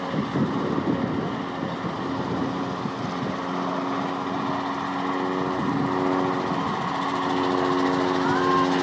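A small engine running steadily, a continuous hum.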